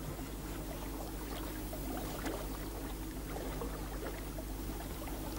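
River ambience: water flowing and lapping over a steady low rumble, with many small scattered ticks.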